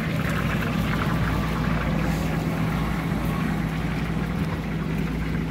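A wood fire blazing under a karahi of frying oil makes a continuous rushing noise. A steady low hum runs under it.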